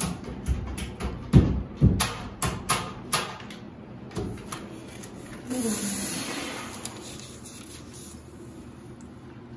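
A quick run of sharp taps or knocks, about nine over three seconds. A few seconds later comes a rustle of paper sheets being handled.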